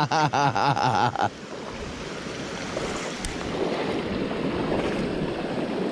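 Steady rushing of a mountain stream's flowing water, after a brief burst of a person's voice at the start.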